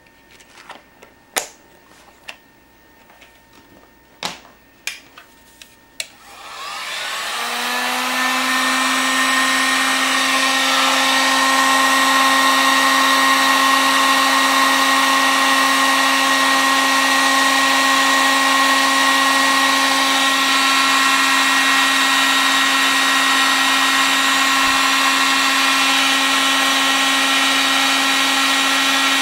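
A few small clicks and taps, then an electric heat gun switches on about six seconds in and runs steadily with a humming whine. It is heating a solder-seal heat-shrink butt connector to melt its solder and shrink its tubing onto the wire.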